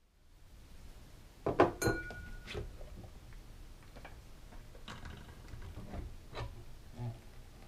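Handling clinks and knocks as the lid is pulled off a blender jar and a drinking glass is set down on a stone counter: a string of separate knocks, the loudest cluster about a second and a half in, followed by a short ringing tone, then lighter taps.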